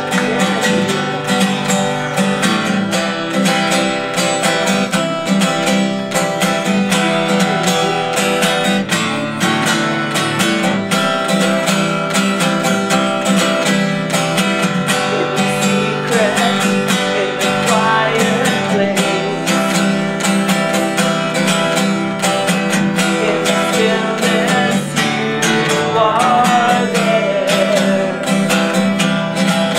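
Acoustic guitar strumming steadily, the instrumental intro of a song.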